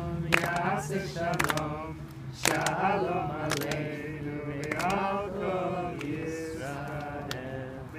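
Voices singing a song together, holding and sliding through long notes, with sharp claps roughly once a second in time with it.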